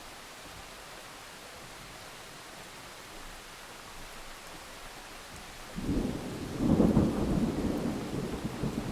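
Steady rain hiss, then about six seconds in a deep rumble of thunder rolls in, loudest a second later and still rumbling at the end.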